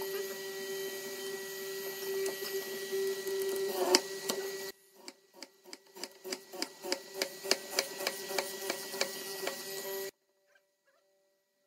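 Hollow-chisel mortiser running with a steady hum, then a quick run of sharp knocks, about four a second, as its chisel is plunged into a pine beam; the sound cuts out abruptly about ten seconds in.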